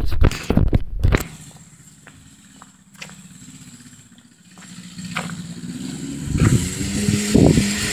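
Polaris Sportsman 90 ATV engine running out on the track, faint at first, then growing louder from about five seconds in as the quad comes nearer, ending in a steady drone. A few knocks and rustles of handling noise on the microphone in the first second.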